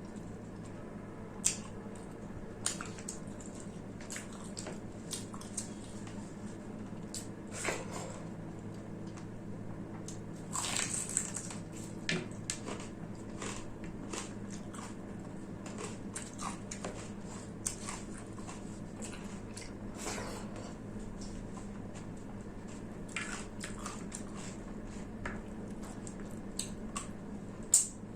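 Close-miked eating of rice and mutton curry: irregular wet chewing, squishing and lip smacks with occasional crunches, with a louder bite about a second and a half in and another near the end. A faint steady hum sits underneath.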